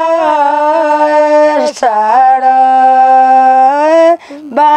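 A woman singing a Far-Western Nepali thadi bhaka folk tune without accompaniment, in long drawn-out held notes that bend at the start of each phrase. She takes a short breath about two seconds in and pauses briefly near the end.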